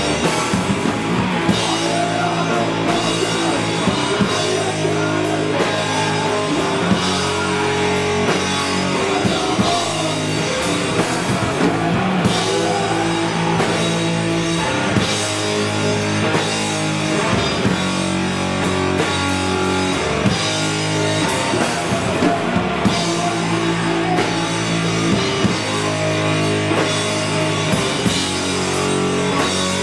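Doom/sludge metal played live: heavy electric guitar chords ringing over a pounding drum kit, loud and continuous.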